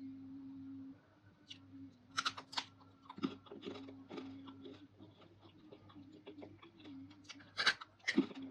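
Close-up chewing of crunchy dried fruit and vegetable pieces: a run of crisp, crackly crunches, loudest about two seconds in and again near the end, over a steady low hum.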